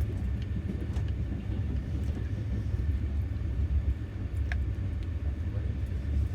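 Passenger train carriage running with a steady low rumble, heard from inside the car, with a few faint clicks and one brief high squeak near the middle.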